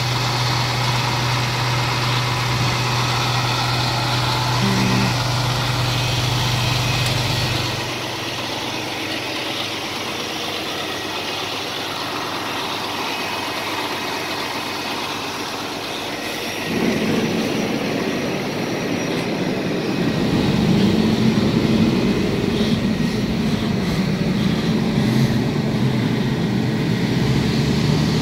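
Pierce fire engine's diesel engine idling steadily with a low hum, which drops a little after about eight seconds and grows louder in the second half.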